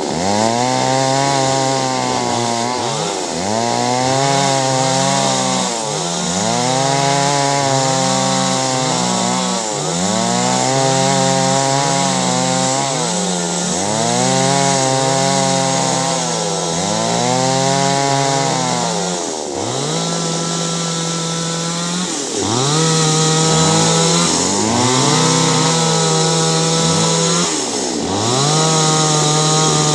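Two-stroke chainsaw cutting clove tree wood, its engine pitch rising and falling over and over, about every one and a half to two seconds. It holds steadier for a few seconds about two-thirds of the way in.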